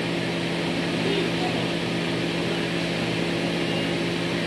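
Steady hum of a household appliance motor running, with an even hiss over it.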